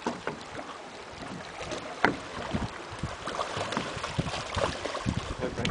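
Water splashing and sloshing as a hooked shark thrashes at the surface beside a small boat, with wind on the microphone and a sharp knock about two seconds in.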